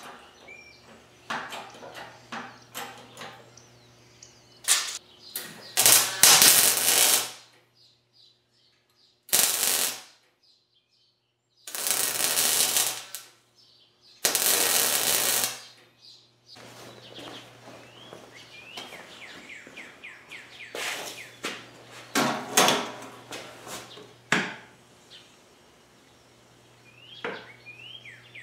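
Electric arc welding on a steel-tube frame: the arc crackles in several bursts of about a second each, the tack welds, with lighter crackling and clicks between them.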